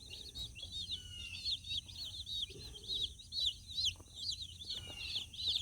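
A brood of day-old Cornish Cross broiler chicks peeping: many short, high chirps overlapping in a steady stream.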